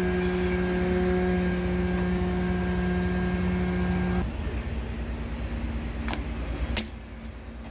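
Truck-mounted hydraulic grapple crane running with a steady, even hum while it lowers a log onto a sawhorse. The hum cuts off abruptly about four seconds in, leaving a quieter outdoor background with two sharp clicks.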